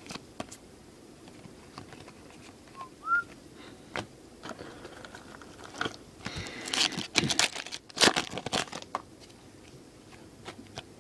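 Foil wrapper of a baseball card pack crinkling and tearing open, loudest in a crackly stretch past the middle, with the light clicks of cards being handled. A short rising chirp sounds about three seconds in.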